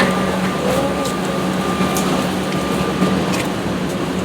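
Excavator's diesel engine running steadily with a low hum, with a few sharp clicks over it.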